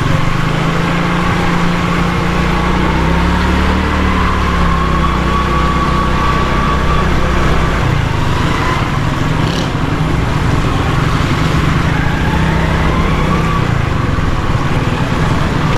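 A motorcycle engine running as the bike rides slowly, its pitch drifting gently up and down, over steady road and wind noise.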